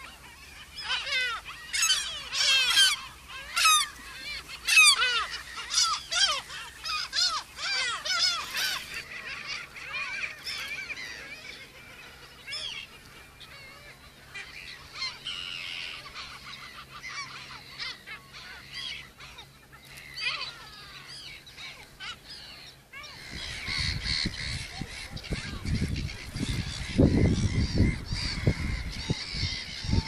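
A breeding colony of black-headed gulls calling, many harsh cries overlapping, thickest in the first nine seconds and thinning after. About 23 seconds in, wind begins buffeting the microphone with a low rumble, the gull calls still faint behind it.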